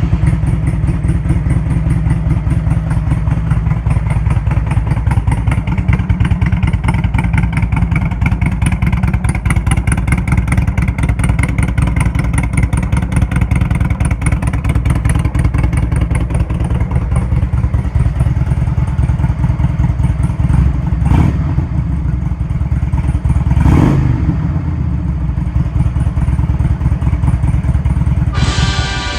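Engine idling steadily with a deep, rapid, even pulsing, most likely a motorcycle's. Two brief knocks come about three-quarters of the way through, a few seconds apart.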